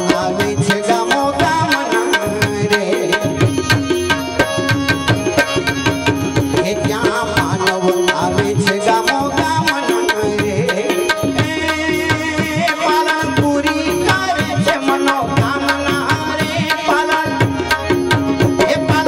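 Live devotional bhajan music in an instrumental passage: tabla drumming in a quick, even rhythm under a steady melodic accompaniment.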